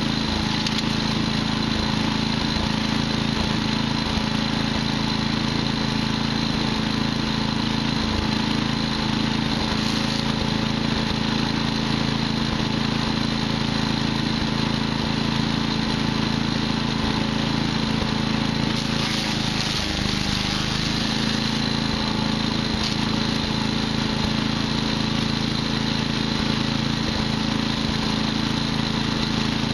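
Patriot wood chipper's petrol engine running steadily, with a few brief knocks.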